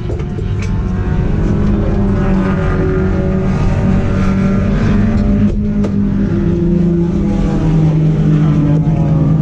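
Race car engine running hard on track, its pitch rising and falling with the revs. A couple of short knocks come about halfway through.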